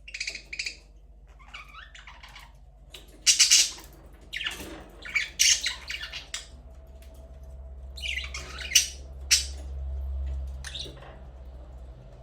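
Budgerigars squawking and chirping in short, scattered calls, the loudest a burst about three seconds in. A low hum swells in the second half.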